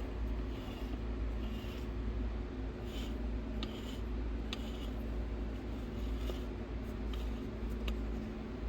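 Lathe running steadily with a resin-and-wood bowl spinning on it, with short scratchy rubs against the bowl about once a second as it is worked to a finish.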